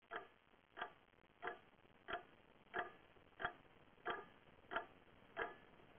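Clock ticking, faint and even, about three ticks every two seconds.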